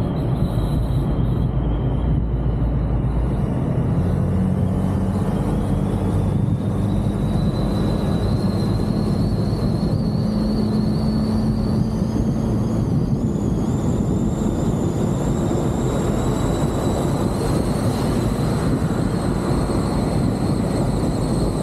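A car driving at speed on an open road: steady engine and tyre noise with wind rushing over the microphone. A faint high whine slowly rises in pitch over the stretch.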